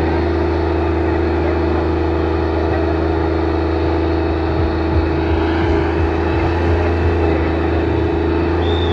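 Tractor diesel engine running hard at a steady pitch under heavy load, a constant drone that does not rise or fall. Crowd voices are faint behind it.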